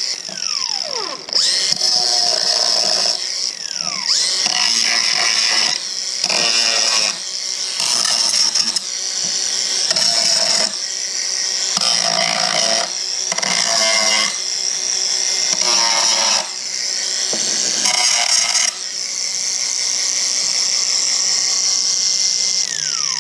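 A power drill running in a string of bursts, its high whine changing pitch under load between them. The whine falls away as the motor winds down near the end.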